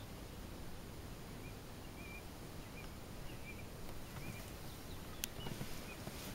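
Open-air meadow ambience: a low, steady rumble with faint, short bird chirps scattered every half second or so, and one sharp click about five seconds in.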